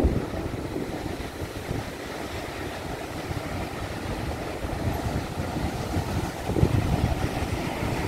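Large ocean waves surging and breaking below a headland, with strong wind buffeting the microphone in gusts.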